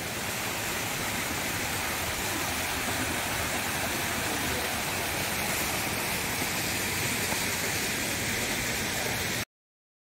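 Small forest waterfall splashing down into a shallow stream: a steady rush of falling water that cuts off suddenly near the end.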